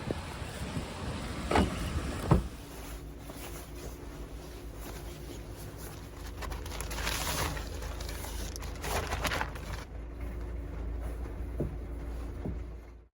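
Strong wind gusting against a parked Honda N-VAN, heard from inside the van as a low steady rumble with rushing swells. Two sharp knocks come a few seconds in as the gusts rock the van.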